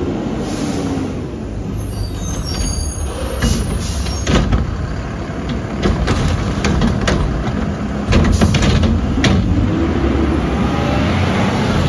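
Mack LR refuse truck's engine running as it pulls up to a curbside cart, its pitch gliding up and down near the start and again near the end. A string of sharp clanks and knocks from the truck comes through the middle.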